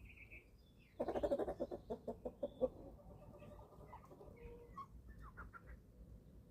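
Eleven-week-old chickens calling: a short high peep at the start, then a loud burst of rapid clucking about a second in that lasts under two seconds, followed by softer scattered peeps and chirps.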